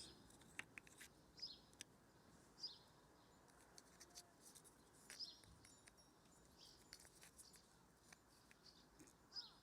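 Near silence, broken by faint scattered clicks of plastic hose-coupling parts being handled and fitted, with a few faint high bird chirps.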